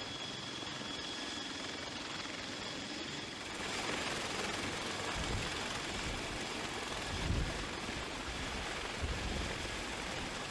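Sikorsky CH-53K King Stallion heavy-lift helicopter running on the ground, its three turboshaft engines and turning rotor heard as a steady rushing noise with a thin high turbine whine. The sound shifts and grows a little fuller about three and a half seconds in.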